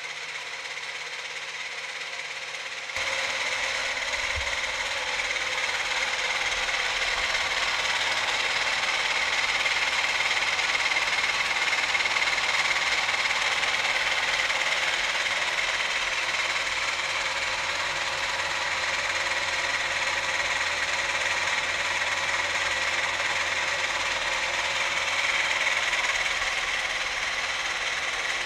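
3D-printed model turboshaft engine running and spinning a propeller: a steady whirring that gets louder about three seconds in.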